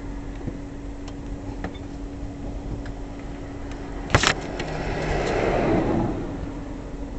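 Street traffic: a car passes, swelling and fading about five to six seconds in, over a steady low hum. There is one sharp knock or click about four seconds in.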